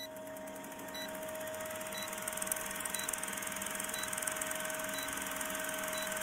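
Film-countdown sound effect: a film projector running with a fast, even clatter and a steady hum, with a short high beep once a second as the numbers count down. It fades in at the start.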